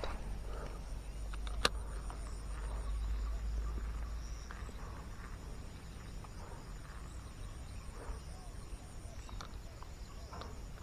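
Insects trilling steadily in a high, finely pulsed chorus over a low, steady rumble, with one sharp click nearly two seconds in.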